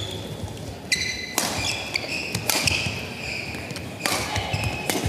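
Badminton rally: several sharp racket hits on the shuttlecock, spaced about a second apart, with short high-pitched squeaks of court shoes on the mat in between.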